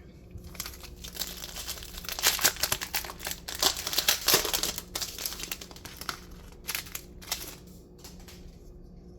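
A Disney Lorcana trading-card booster pack being torn open, its wrapper crinkling and crackling irregularly for several seconds, loudest in the middle, then dying down near the end.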